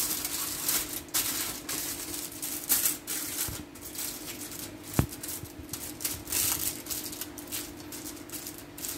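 Aluminium foil crinkling and crackling in irregular bursts as hands fold and crimp it around a fish parcel, with one sharp click about halfway through.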